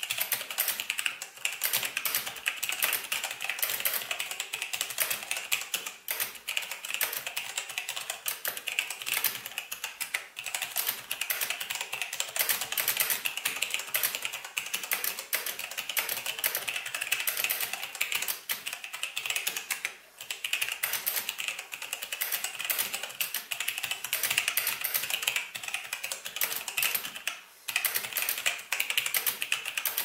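Logitech G810 Orion Spectrum mechanical keyboard with Romer-G switches being typed on fast and continuously, a dense run of key clicks with a few brief pauses, the longest near the end.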